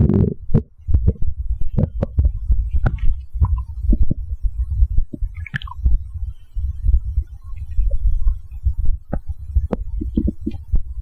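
A stomach gurgling and growling after a can of Coke: a continuous low rumble broken by many irregular short gurgles and pops.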